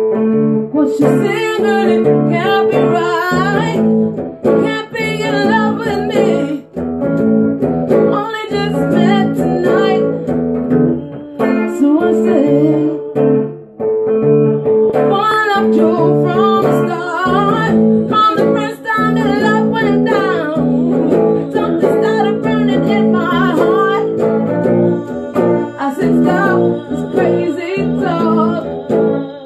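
A woman singing live while accompanying herself on an electric guitar: sung phrases over repeating guitar chords.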